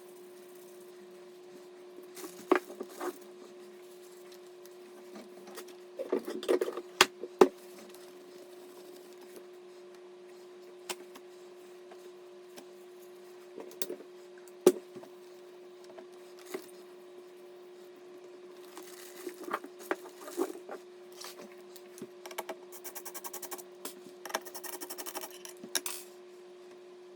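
Hands working on PC parts: scattered clicks, taps and knocks of plastic and metal pieces, with rustling, and a quick run of rapid ticks near the end, over a steady faint hum.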